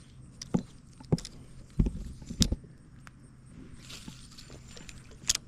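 Five sharp clicks and knocks, spread unevenly, over a faint steady low hum.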